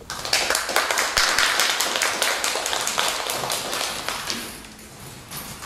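Audience applauding, a dense patter of claps that thins and dies away after about four and a half seconds.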